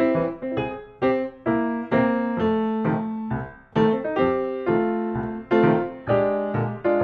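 Background music: a light piano tune of single struck notes, each fading away before the next.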